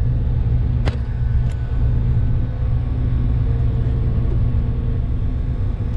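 Farm machine's diesel engine running steadily with a low rumble, with two short clicks about a second in.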